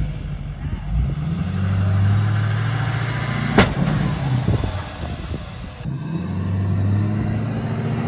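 Pickup truck's turbo-diesel engine held at high revs under heavy load, straining to turn giant wooden wheels, with a single sharp crack about three and a half seconds in.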